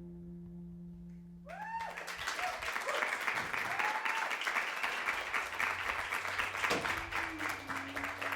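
A lingering musical tone fades out, then an audience breaks into applause about a second and a half in, with cheers and whoops at the start.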